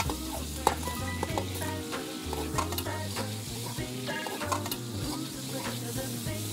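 Eggs and green onions stir-frying in oil in a wok, a steady sizzle with irregular clicks and scrapes of a metal ladle against the pan. Soft background music runs underneath.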